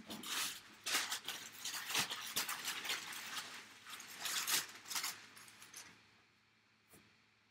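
Handling noise: repeated rustling and crinkling of packaging as an item is unwrapped, dying away about six seconds in, with a single small click near the end.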